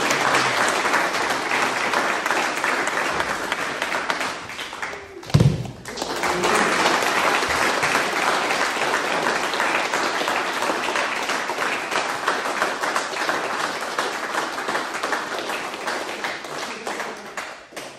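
A group of people applauding steadily. About five seconds in the clapping briefly dips and a single heavy thud sounds, then the applause picks up again and fades near the end.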